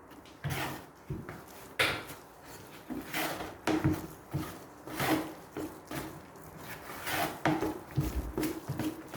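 Setting-type (45-minute) drywall compound being mixed stiff by hand: uneven scraping and stirring strokes of a tool through thick mud against its container, with a few dull knocks.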